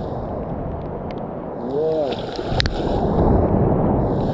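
Ocean surf rushing and splashing up the beach, heard muffled, swelling louder in the second half. A short vocal sound about two seconds in and a sharp click just after.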